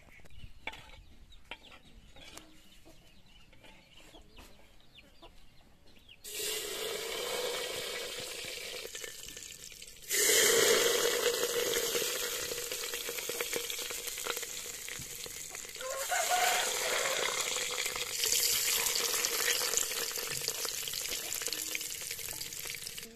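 Hot oil sizzling in a clay handi pot, starting suddenly about six seconds in and growing louder in steps, around ten seconds in and again later.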